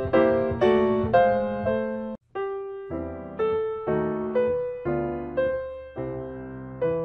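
Background piano music: struck notes about two a second, each fading away, with chords under a simple melody. It cuts out briefly about two seconds in and then starts again.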